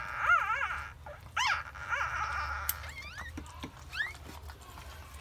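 Newborn Shih Tzu puppy crying in repeated high-pitched squeals that rise and fall. The cries grow shorter and fainter after about three seconds.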